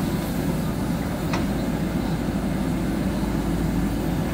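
JCB 3DX backhoe loader's diesel engine running steadily under load while the backhoe arm digs in the mud.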